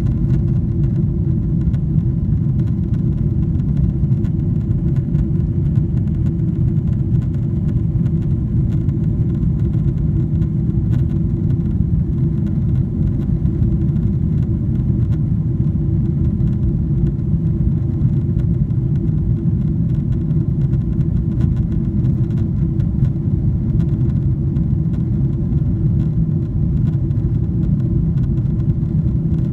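Steady low rumble of airliner cabin noise inside a Boeing 777-300ER in flight, from its GE90 engines and the air rushing past the fuselage, with a faint steady hum on top.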